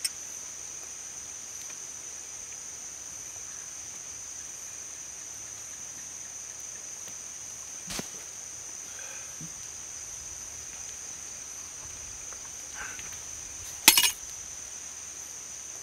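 Night-time insect ambience: a steady high-pitched drone, like crickets. A small glass clink right at the start as two glasses touch in a toast, a single sharp click about halfway, and near the end a loud, sharp knock of a glass bottle landing in the undergrowth.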